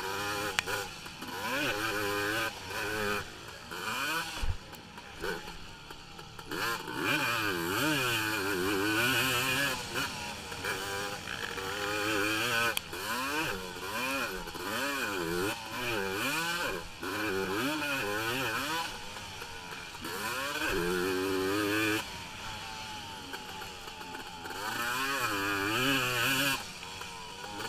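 450-class racing ATV engine heard from on board, revving hard and falling away over and over as the rider opens and closes the throttle and shifts through the gears. The revs drop off briefly twice.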